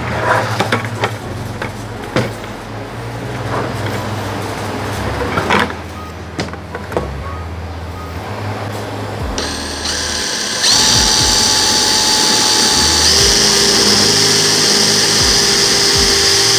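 Craftsman brushless cordless drill boring a 5/8-inch hole through the side of a plastic five-gallon bucket. After scattered clicks, the motor runs loud and steady at a high whine from about ten seconds in, its pitch shifting once, then stops at the very end.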